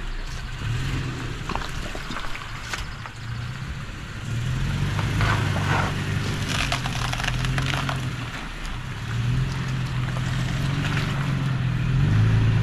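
Off-road vehicle's engine running low and steady, with close crunching and snapping of twigs, leaves and stones, thickest between about five and eight seconds in.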